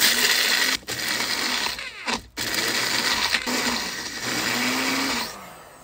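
Magic Bullet blender grinding whole coffee beans, run in three bursts with short breaks about one and two seconds in, stopping about five seconds in.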